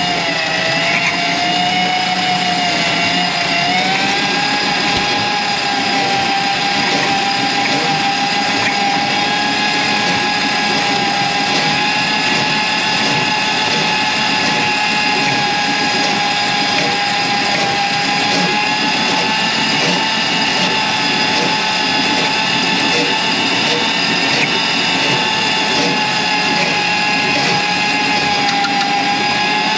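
An electric motor on power equipment runs steadily with a high whine. The pitch steps up about four seconds in, then holds with only slight wavering.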